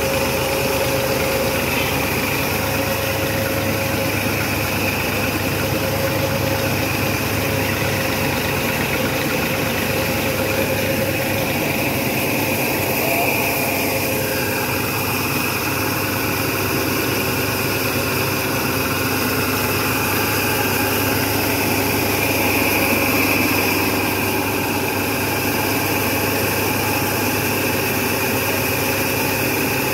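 Small saw-type cotton gin running steadily while raw cotton is fed in, its belt-and-pulley drive giving a constant mechanical hum with a steady high whine.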